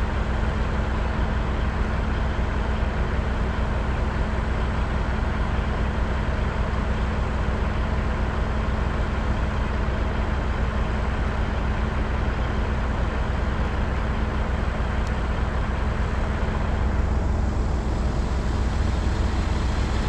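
The crane's engine running at a steady speed, a constant low drone that does not change during the lift.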